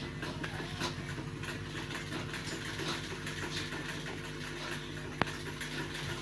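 Steady electric motor hum from the refrigerator's vacuum-and-flush setup, with faint ticking and one sharp click about five seconds in.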